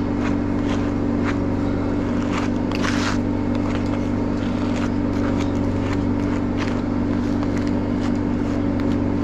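Short scratchy strokes of a slicker brush pulled through a dog's curly coat, about two a second, with the loudest strokes about three seconds in, over a steady machine hum.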